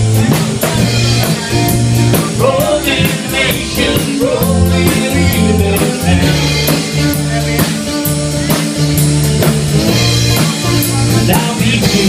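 Live rock band playing: strummed acoustic guitars, electric bass and drum kit with steady cymbal strokes, and a sung vocal line.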